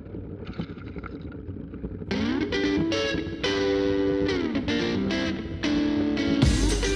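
Background rock music on electric guitar: a quieter opening, then a distorted guitar riff with sliding chords coming in about two seconds in, and a heavy low end joining near the end.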